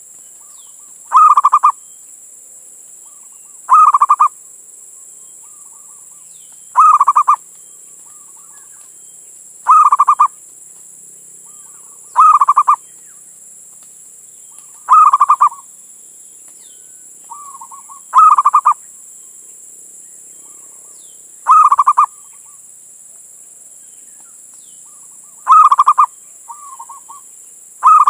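Male zebra dove (perkutut) singing its cooing song: a loud phrase about every three seconds, with softer coos between the phrases. Under it runs a steady high hiss.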